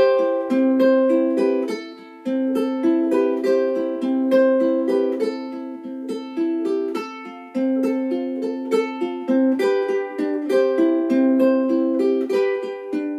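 Godin MultiUke tenor ukulele with D'Addario titanium strings, played through a Cornell valve acoustic amplifier. It is fingerpicking a steady melody of single notes and chords that ring on, starting abruptly and dying away near the end.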